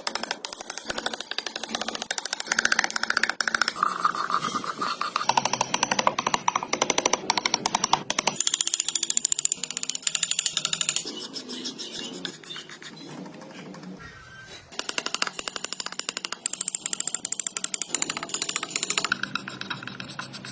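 Background music with a fast, even beat and shifting melodic lines, dropping quieter for a couple of seconds a little past the middle.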